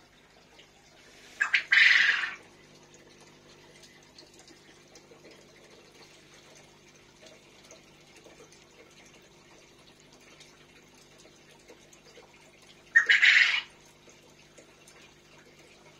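Aquarium filter setup running: a steady low hum under faint trickling water, broken twice, about a second and a half in and near the end, by a loud rushing noise lasting about a second.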